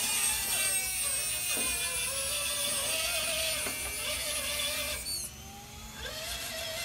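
A high-speed power tool running with a loud hiss, shut off about five seconds in and winding down with a falling whine.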